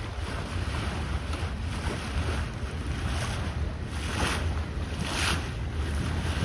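Wind buffeting the microphone over water rushing and splashing along the hull of a sailing yacht under way on choppy water, with two louder rushes about four and five seconds in.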